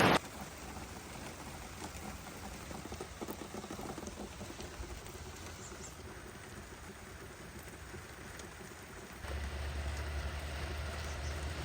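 Steady rain falling. About nine seconds in, a low steady rumble joins it and the sound gets louder.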